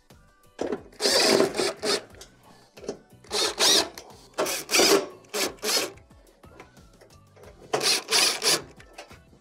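Cordless drill/driver running in several short bursts, driving Phillips screws into a sheet-metal range back panel, with pauses between screws.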